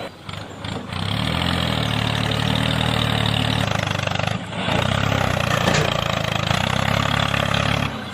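Vehicle engine running steadily, with short dips about half a second in and again about four and a half seconds in.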